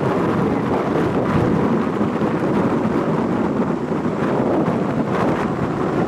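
Strong typhoon wind blowing over the microphone: a steady, fairly loud rushing noise with gusty flutters.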